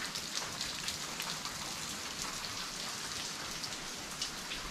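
Water dripping from a cave's rock overhang: a steady patter of many small drops.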